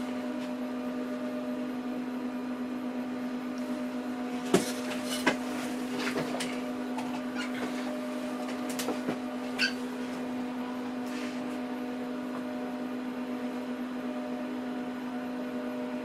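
Dell PowerEdge R710 server's cooling fans running with a steady hum, with a few short clicks a little under halfway through and again near the middle.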